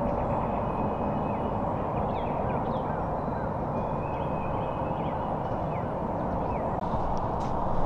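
Small birds chirping and whistling in short calls over a steady low background rush.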